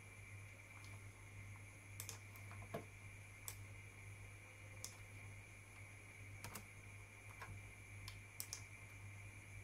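Computer mouse and keyboard clicks, about ten sharp, scattered ones, as code is copied, selected and deleted in an editor. Underneath is a faint steady low hum and a high whine.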